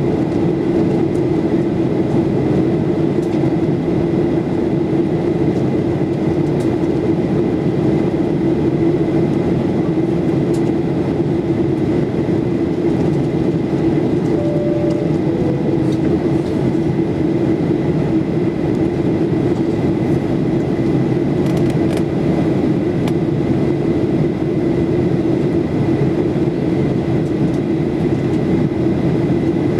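Steady cabin noise inside a Boeing 737-8200 in flight, the rush of airflow over the fuselage and the hum of its CFM LEAP-1B turbofans, with a constant low drone and a faint thin high whine. About halfway through, a soft two-note cabin chime, the second note lower.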